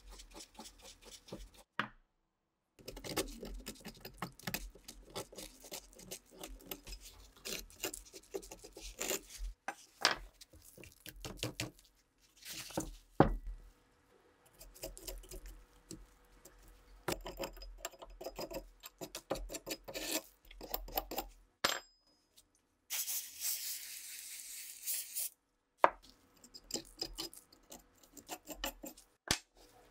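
A hand file rasping and scraping on rusted rifle metal, in short stretches broken by sudden silent cuts, with clicks and knocks as the parts are handled and picked at. About two-thirds of the way in comes a steady hiss lasting two or three seconds.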